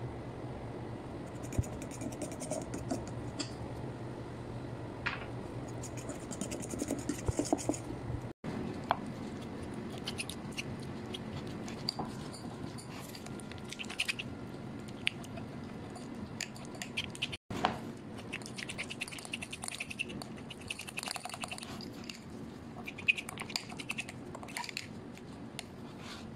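A fork mashing soft cream cheese in a ceramic bowl: irregular scraping, with light clicks and taps of the fork against the bowl. The sound twice drops out briefly.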